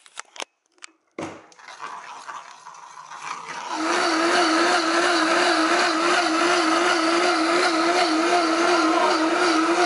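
Vitamix blender blending soup: its motor builds up over the first few seconds, then runs at full speed with a loud, steady whine whose pitch wavers slightly and evenly.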